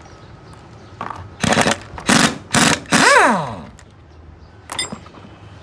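Short, loud blasts of hissing air from a compressed-air blow gun, four in quick succession. The last blast trails off into a falling whine as a part spun by the air winds down. Another short blast comes near the end.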